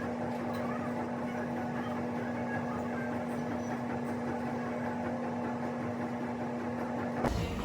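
Steady machine hum with one held tone, as from a small appliance or motor running, cutting off abruptly near the end.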